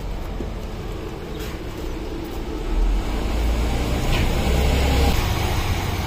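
Street traffic: a motor vehicle's engine running as a low rumble that grows louder about three seconds in and stays up.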